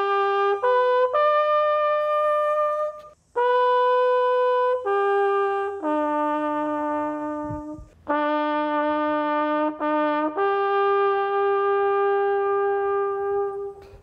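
A solo trumpet plays a slow bugle-style melody on the open notes of the horn. It moves in three phrases of long held notes with short breaths between them, and the final note is sustained for about four seconds near the end.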